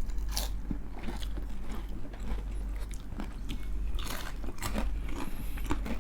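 Close-up crunching and chewing of crispy fried chicken skin, in irregular bites.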